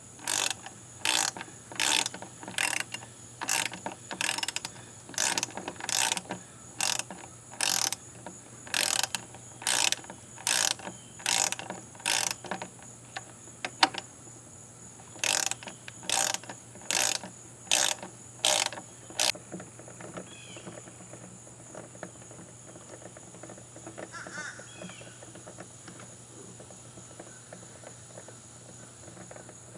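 Hand socket ratchet clicking through repeated strokes, roughly one a second, in two runs with a short pause between; it stops about two-thirds of the way through.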